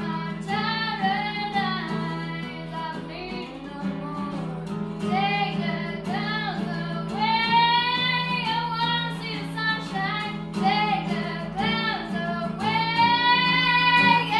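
A young girl singing a pop song over instrumental backing, holding long notes about halfway through and again near the end.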